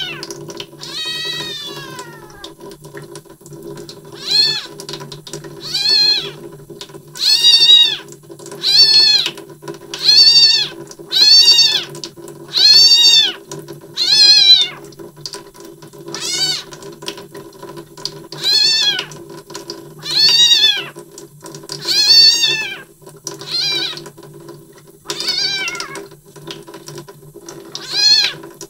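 A kitten meowing over and over, about one rising-and-falling cry every second and a half, with a long downward-sliding cry near the start. It cries while straining to pass a stool. A steady low hum runs underneath.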